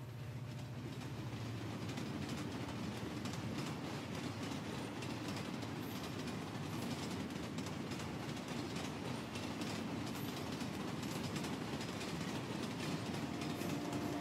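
Subway train running, heard from inside the car: a steady rumble with faint clicks and rattles from the wheels on the track, swelling up over the first couple of seconds and then holding.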